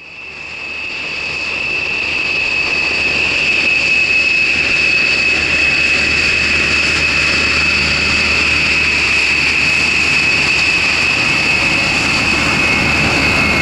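Rockwell B-1B Lancer's four General Electric F101 turbofan engines whining steadily as the bomber taxis on the ground: a high, piercing whine over a low rumble. It fades in over the first couple of seconds.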